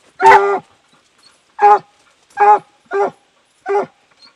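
Hunting dog barking at a raccoon it has cornered in a hole: five sharp barks, the first a little longer, the rest spaced about half a second to a second apart.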